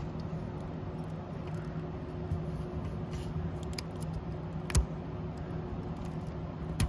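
Steady low hum with a few sharp clicks, the loudest about five seconds in and another near the end.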